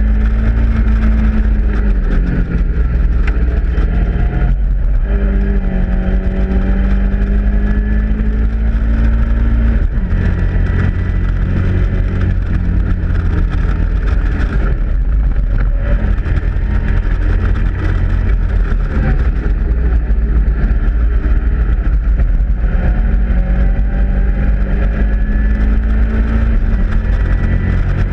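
Caterham Roadsport race car's four-cylinder engine at racing speed, heard from its open cockpit, revving up and dropping back repeatedly through gear changes and lifts.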